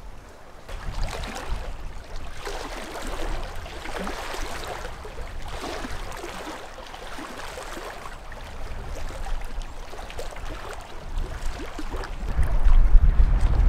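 Small waves lapping at the lake shore in a breeze, the splashy hiss swelling and fading every second or two. Near the end, wind buffets the microphone with a low rumble.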